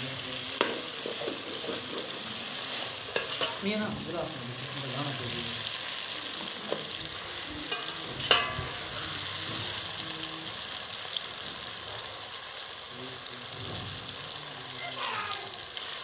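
Thick meat curry sizzling in a steel pot while a spoon stirs it, with a few sharp knocks of the spoon against the pot.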